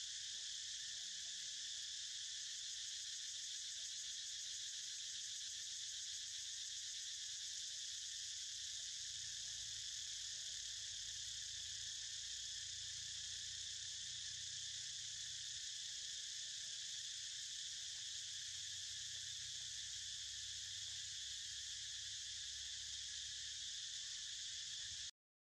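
Steady, high-pitched drone of an insect chorus in the trees, unbroken until it cuts off suddenly near the end.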